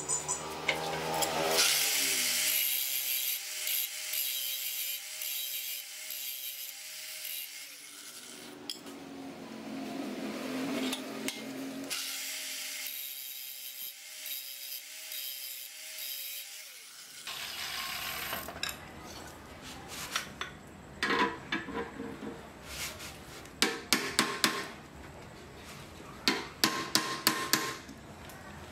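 Angle grinder running with an abrasive disc against the end of a steel rod clamped in a vise, grinding in spells over the first two-thirds, with a wavering motor whine under the grinding noise. It stops abruptly, and a string of sharp metal clinks and knocks follows as the rod is handled with a wrench.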